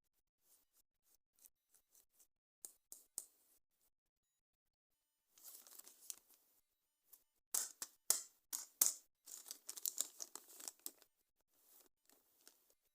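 Toy packaging being opened by hand: a few small clicks and taps, then from about five seconds in a run of crinkling and tearing of plastic and cardboard, loudest a little past halfway.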